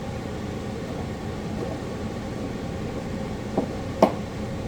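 Steady background hum and hiss, with two short clicks near the end.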